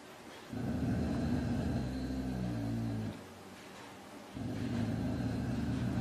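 A large animal growling: two long, deep growls, the first about two and a half seconds long, the second starting after a pause of about a second.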